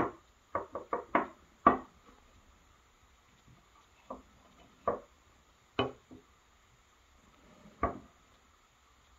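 Sharp clicks and taps of a Brunton pocket transit compass being handled on a wooden desk, its metal case and parts knocking as it is turned and opened. There is a quick run of about six clicks in the first two seconds, then four more single clicks spaced a second or so apart.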